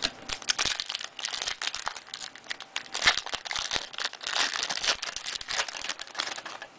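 Plastic wrapper of a trading-card pack crinkling and tearing as it is opened, with dense irregular crackles and clicks.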